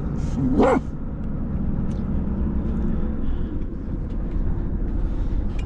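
Volvo FH16 timber truck's engine running steadily under way, heard from inside the cab. About half a second in, a short pitched sound rises and falls.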